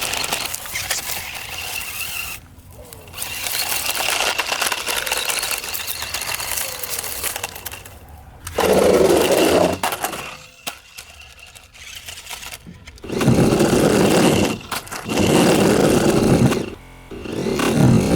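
Toy RC stunt car's small electric drive motors whining as it drives over rough ground, in several bursts that break off abruptly.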